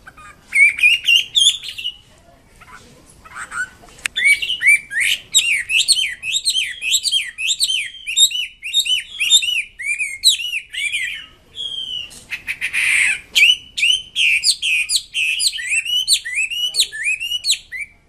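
Chinese hwamei (wambi) singing loudly: long runs of rapid, varied whistled notes that rise and fall, broken by a pause about two seconds in and a short break in the second half, with a brief harsh rasping note soon after that break.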